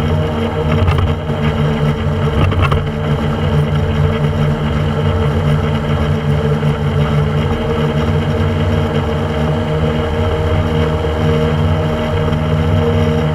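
Small motorboat's engine running steadily at cruising speed, with a rush of wind and water past the boat. There are a couple of faint knocks about one and three seconds in.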